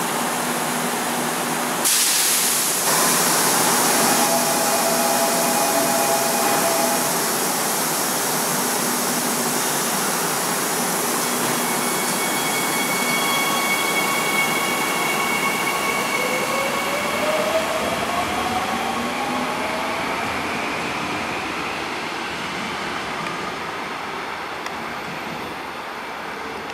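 Seoul Metro Line 3 ten-car electric train pulling out of the station, with a loud hiss about two seconds in. The traction motors' whine then rises in pitch as the train speeds up, and the sound fades as it moves away.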